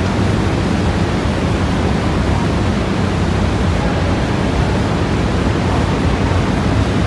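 Steady, loud roar of Niagara's Horseshoe Falls heard from inside the tunnel behind the falls, an unbroken rushing noise heaviest in the deep rumble.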